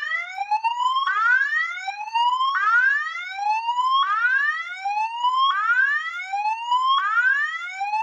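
Fire alarm speaker/strobe sounding a loud whoop evacuation tone: a rising sweep that starts low, climbs, then drops back and repeats about every one and a half seconds.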